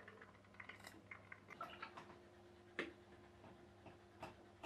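Near silence with faint, irregular ticks and clicks, one a little louder just before the three-second mark.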